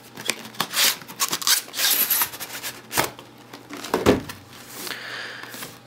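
Cardboard packaging being handled and pried open by hand: irregular rubbing, scraping and clicking of card, with a sharp knock about three seconds in and a heavier knock just after four seconds.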